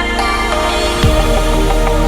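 Electronic dance music. About a second in, a falling sweep drops into a heavy bass beat.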